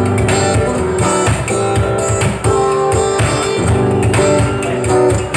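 Live acoustic band music: guitar strumming over a steady percussion beat.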